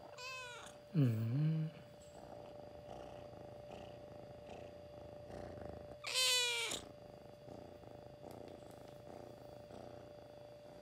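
Kitten purring steadily while being stroked, broken by three short meows: two near the start and a louder one about six seconds in.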